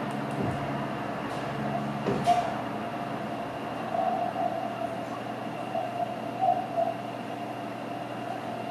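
Receiver audio from an Expert Electronics MB1 SDR transceiver being tuned across the 20-metre amateur band: a steady hiss of band noise, with a tone near 700 Hz swelling up briefly several times as signals pass through the receive filter.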